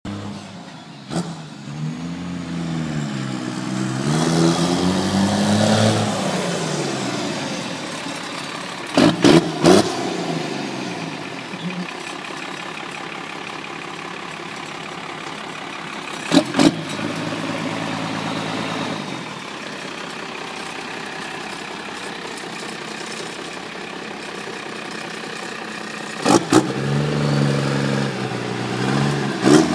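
1995 Dodge Ram 2500's 12-valve Cummins turbo diesel, exhausting through a stack out of the hood, is revved up and down several times, settles to a steady idle through the middle, then is revved again near the end. A few short, sharp knocks stand out over the engine.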